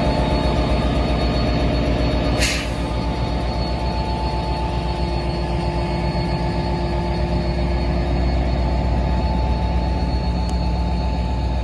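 NJ Transit PL42AC diesel-electric locomotive running close by as it moves slowly past, a steady low engine hum with a steady whine above it. A brief sharp hiss cuts in about two and a half seconds in.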